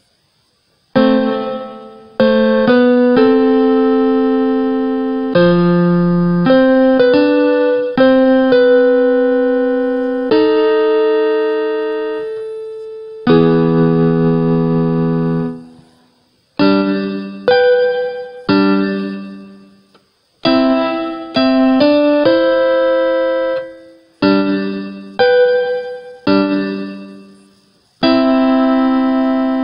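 Electronic keyboard in a piano voice playing a mazurka: chords struck and left to fade, in phrases with short breaks between them. It starts about a second in.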